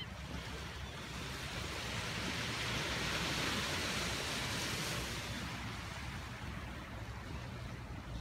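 Small waves breaking and washing up a sandy beach, one wash swelling about two seconds in and easing off by about five seconds, over a low rumble of wind on the microphone.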